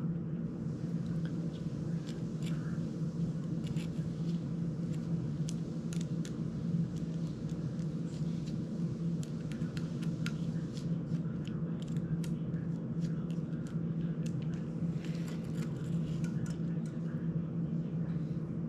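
Scattered small clicks and taps of a screwdriver and screws working on a small FPV drone's frame, over a steady low hum.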